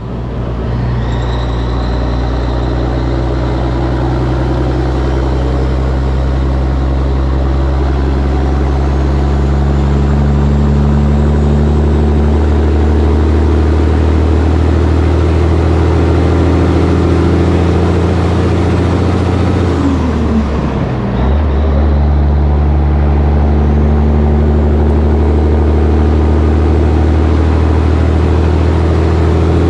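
Caterpillar diesel engine of a 1984 Peterbilt 362 cabover running under load at highway speed, with wind and road noise over the cab roof. About two-thirds through, the engine note drops and dips briefly for a gear shift, then picks up again.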